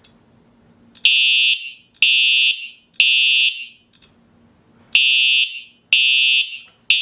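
Simplex TrueAlert fire alarm horn sounding the temporal-three evacuation pattern: three loud half-second blasts a second apart, a pause, then three more, the last one cut short. The Wheelock AS horn beside it stays silent because its positive wire has broken off.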